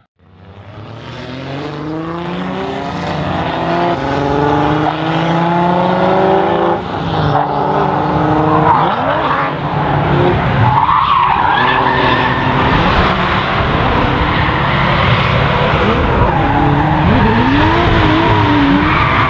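Drift car engines revving hard, the pitch climbing over several seconds, then tyres squealing and skidding through a long slide with the engines held high.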